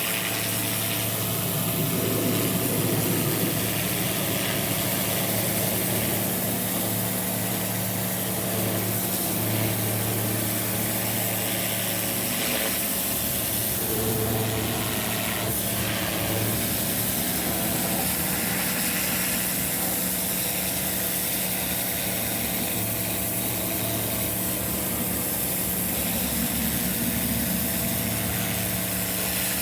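Pressure washer running steadily, its motor humming under the continuous hiss of the water jet spraying the steps.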